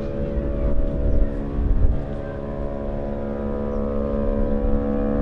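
A ship's horn sounding one long, steady blast, several tones held together, over a low rumble.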